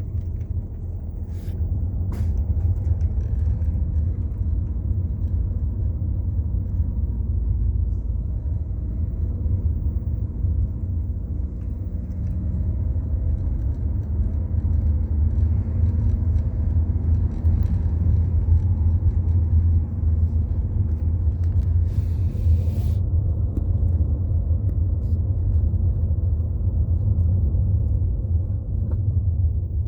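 Steady low rumble with a faint engine hum, as of a car running.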